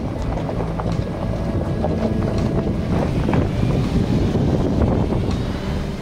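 SUV tyres rolling over a loose gravel track, with many small stones crunching and popping under the wheels over a steady road rumble, and wind buffeting the microphone.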